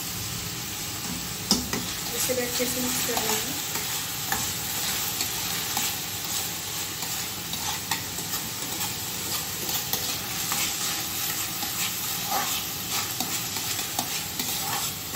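Chopped onion, capsicum, cabbage and tomato frying in oil in a kadhai, sizzling steadily while a spatula stirs them, with scattered clicks of the spatula against the pan.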